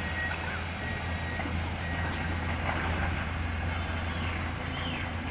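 Diesel engine of a SANY SY220C-9 excavator running with a steady low drone.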